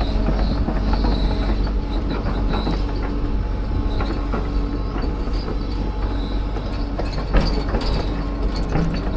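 Excavator moving on its tracks, the engine running steadily under constant clanking and knocking from the track gear, with a thin high squeal that comes and goes and one sharper knock near the end.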